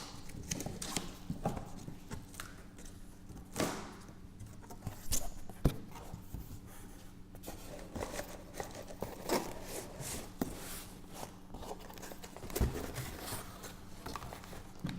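A cardboard box being opened and its contents handled: irregular rustles, scrapes and knocks, the loudest a few seconds in, over a steady low hum.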